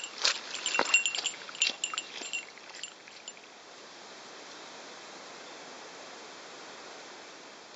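Quick clicking steps with light clinks for about three seconds, then a steady rush of rain-swollen stream water.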